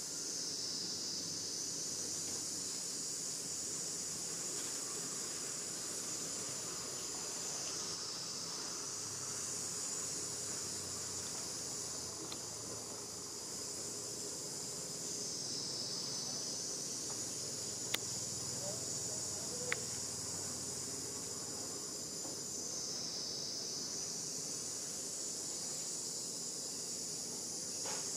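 A high, steady insect chorus that shifts a little in pitch now and then, with two sharp clicks about two-thirds of the way through.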